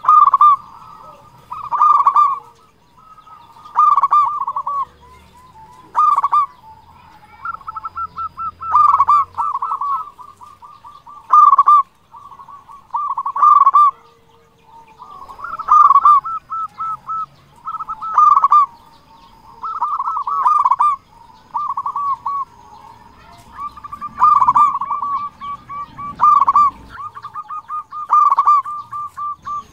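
Zebra dove (perkutut) cooing: bursts of rapid staccato coos about every two seconds, with a few longer, drawn-out runs of notes.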